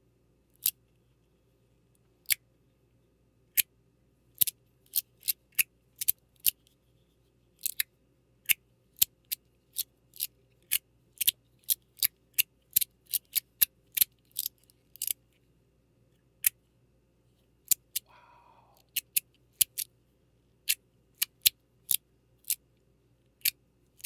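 42cosmo XXL mechanical fidget slider fitted with a Pi shell, clicking sharply as it is slid back and forth: single crisp clicks at uneven intervals, coming quickest in the middle. A short soft scrape about three quarters of the way through.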